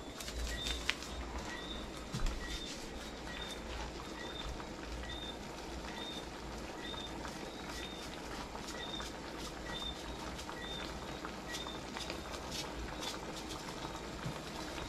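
Lionfish pieces cooking in sauce in a pan on a gas stove: a steady low simmer with scattered small clicks and taps as the fish is seasoned and turned. A short high chirp repeats about twice a second throughout.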